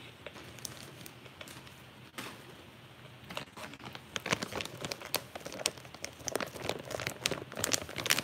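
Crinkling and crackling right at the microphone, a run of sharp clicks that starts sparse and grows dense and louder from about halfway through.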